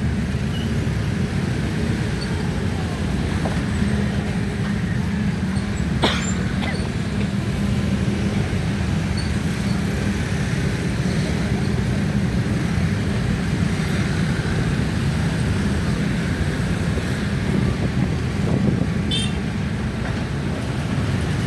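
Steady low rumble of road traffic with heavy vehicles, with a sharp click about six seconds in and a brief high rattle near the end.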